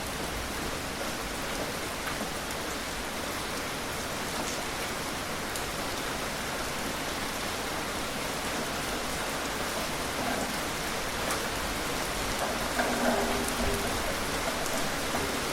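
Moderate rain falling steadily: an even hiss with scattered drop ticks. A brief low pitched sound rises over it near the end.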